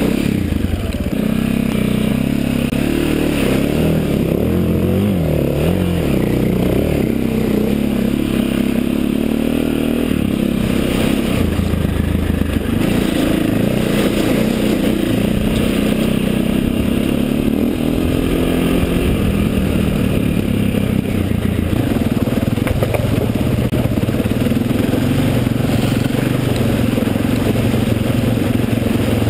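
KTM trail motorcycle engine running under load, its revs rising and falling with the throttle over a rough track, with splashing as the wheels go through shallow running water near the end.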